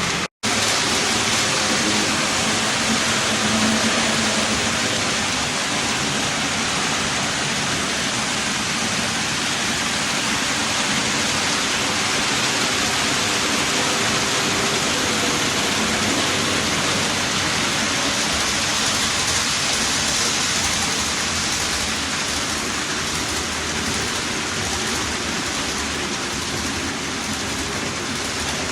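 Steady rushing hiss of an HO-scale model train, Athearn diesel locomotives pulling a long string of mechanical reefer cars, rolling over the layout's track, with a faint hum underneath.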